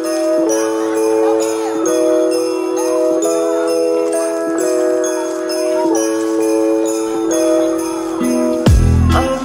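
Instrumental Christmas music with jingle bells shaking in a steady rhythm over held chords that change every half second or so. A low thud comes in near the end.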